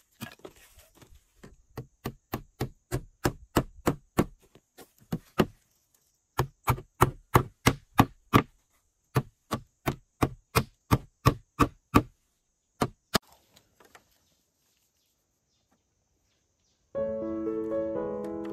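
Rapid, rhythmic striking, about three blows a second in runs of several seconds with short pauses. It stops about thirteen seconds in. Background music starts near the end.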